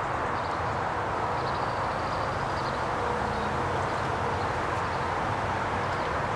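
Steady outdoor background drone, an even noise with a low hum under it, with a few faint high chirps scattered through it.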